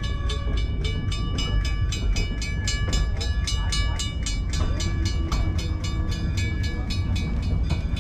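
Railroad crossing signal bell ringing in quick, even strokes, about four to five a second, fading out near the end, over the steady low rumble of the train rolling along the track.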